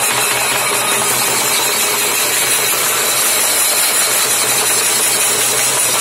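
Stick-beaten hand drums played in a fast, unbroken roll with metal hand percussion jingling over them, a loud steady din with no separate beats standing out.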